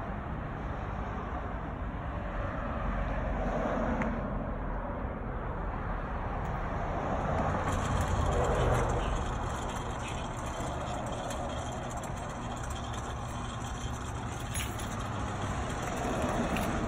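Road traffic going by on a street, with a pickup truck passing and loudest about halfway through.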